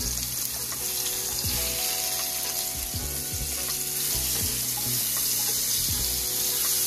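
Salmon fillets sizzling steadily as they fry on high heat in canola oil and butter.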